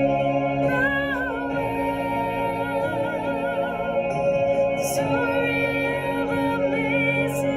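A woman singing a slow melody solo, holding long notes with vibrato over sustained backing chords.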